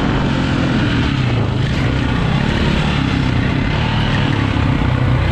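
2004 KTM 450 EXC's single-cylinder four-stroke engine running under load as the dirt bike is ridden at speed, at a steady level throughout.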